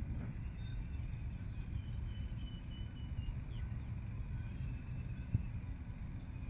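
Outdoor ambience: a steady low rumble with faint, short, high-pitched calls from an unseen animal scattered through it, and a single click about five seconds in.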